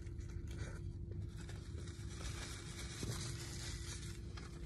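Soft eating sounds: a burger's paper wrapper rustling and crinkling as the burger is bitten into and chewed, over a faint steady hum.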